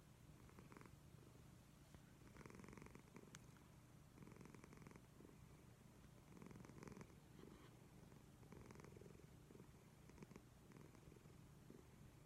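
Domestic cat snoring softly in its sleep, with a raspy breath about every two seconds.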